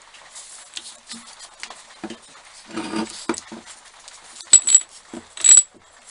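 Metal parts of an old bench drill knocking and rattling as it is handled, then two sharp metal-on-metal clinks with a short high ring near the end.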